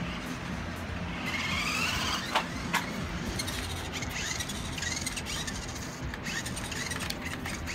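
Small electric motor of a Vinciph 1:18 scale 2WD RC buggy whining, rising and falling in pitch as the car speeds up and slows. Two sharp clicks come a little over two seconds in.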